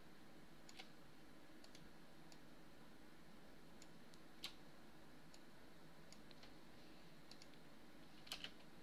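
Computer mouse clicks, short and sharp, scattered irregularly over faint room hiss, with the loudest about halfway through and a quick pair near the end.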